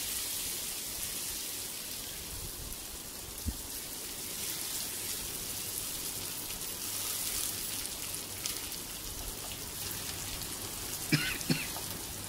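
Chopped green chillies and curry leaves sizzling and crackling in hot oil in a pan while a wooden spatula stirs them. There is a soft thump about three and a half seconds in and two sharp knocks near the end.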